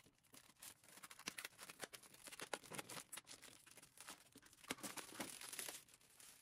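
Clear plastic protective wrap being peeled off a vanity mirror and gathered up, giving faint, irregular crinkling and crackling.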